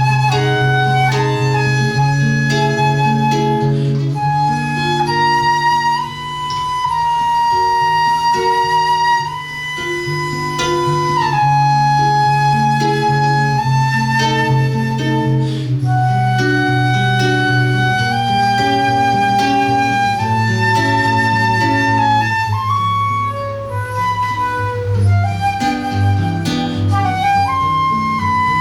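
Live flute and guitar duet: the flute plays a melody of long held notes over plucked guitar chords and a steady low bass.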